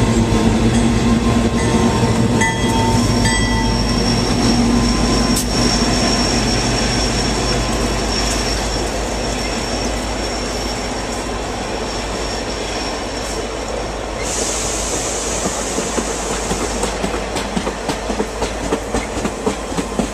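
Train moving: a locomotive engine running steadily under a faint high wheel squeal, a hiss of air about two-thirds through, then rhythmic clicking of wheels over rail joints near the end.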